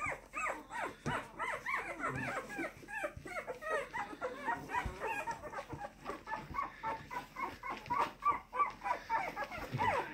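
Two-week-old bully-breed puppies whimpering and squeaking: a continuous stream of short, high, rising-and-falling whines, several a second and sometimes overlapping.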